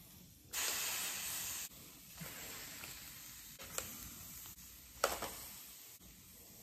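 Lobster tails sizzling as they are laid on a very hot electric griddle: a loud sizzle starts about half a second in and drops after about a second to a softer, continuing sizzle. Two sharp clicks come later, near the middle and near the end.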